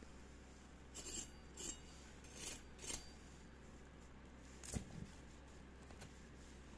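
Faint scraping of kitchen utensils: four short scrapes in the first three seconds, then a light knock a little past the middle.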